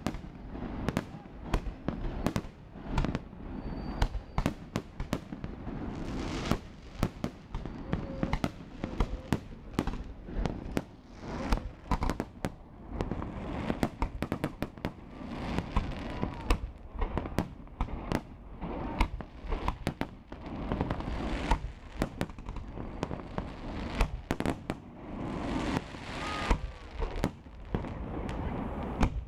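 Aerial firework shells bursting overhead, many sharp bangs in quick, irregular succession over a steady noisy background.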